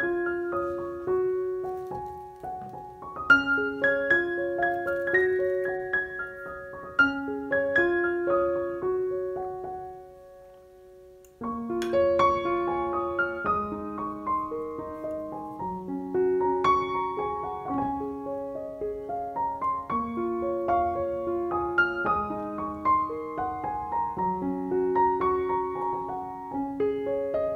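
Background piano music. It fades out about ten seconds in, and a new passage starts a second or so later.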